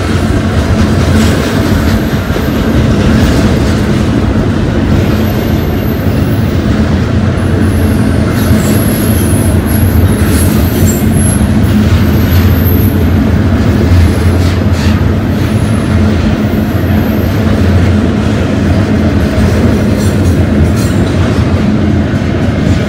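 Double-stack intermodal freight cars rolling past at close range: a loud, steady rumble of steel wheels on rail. Thin high-pitched wheel squeals come and go over it.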